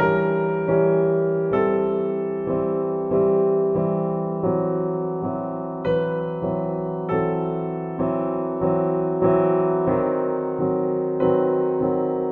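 Background music: slow piano chords, with a new chord struck about every three-quarters of a second.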